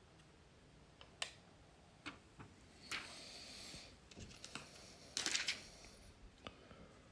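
Small plastic parts of an R34 GT-R multi-function display being handled during disassembly: scattered light clicks and taps, with a scratchy rustle about three seconds in and a louder, shorter one about five seconds in.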